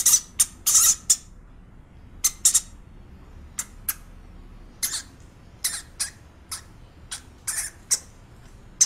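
A run of short, high-pitched animal squeaks at uneven intervals, some coming in quick pairs.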